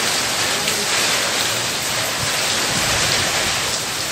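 Rain pouring down steadily, a dense even hiss with no breaks.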